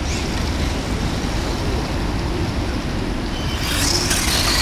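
Steady low background rumble; about three and a half seconds in, a bright hissing scrape sets in as the spiked tyres of a Traxxas Revo VXL RC truck claw at the ice under hard acceleration, lifting it into a wheelie.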